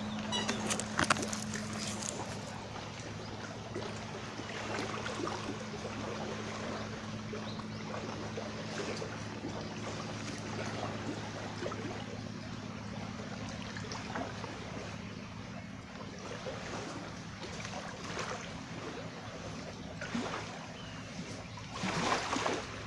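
Quayside outdoor ambience: light water lapping and small scattered clicks, with a steady low hum that fades out about halfway through. A brief louder rustle comes near the end.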